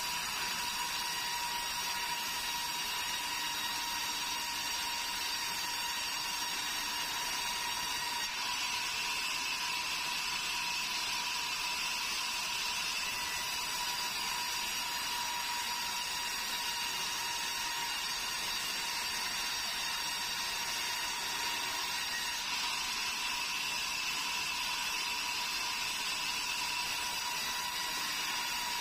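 Band sawmill sawing a hill meranti board: the blade runs with a steady high whine over a hiss of cutting.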